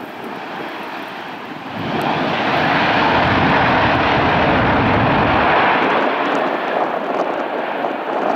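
Boeing 757 jet engines on the landing rollout, rising sharply in level about two seconds in, running loud for about four seconds, then easing off: typical of reverse thrust being applied and then cancelled after touchdown.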